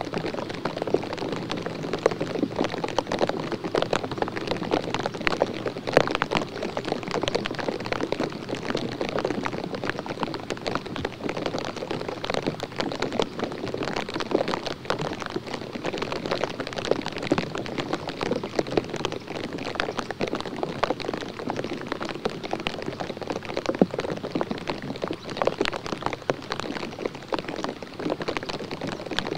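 Water drops falling around the microphone: a dense, irregular ticking of drops over a steady hiss.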